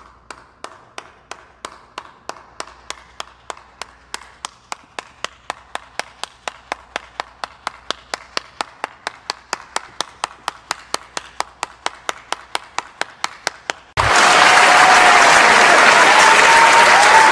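Slow clap meme sound effect: single hand claps at about four a second, slowly getting louder. About fourteen seconds in, it gives way to a loud burst of crowd applause that cuts off abruptly near the end.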